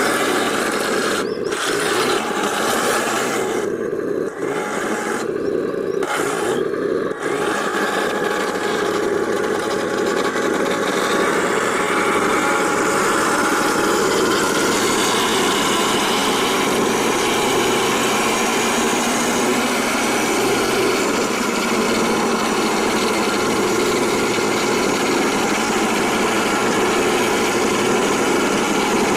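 Simulated tank engine noise from the MATO 1/16 Tiger I RC tank's electronic sound unit, running steadily. It breaks off briefly a few times in the first seven seconds.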